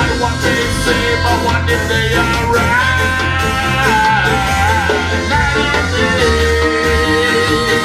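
Live ska band playing, with long held melody notes over a steady bass line.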